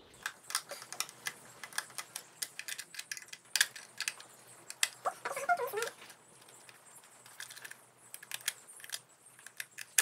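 Screwdriver working the screws out of a plastic wall light-switch plate: a run of small, irregular clicks and ticks.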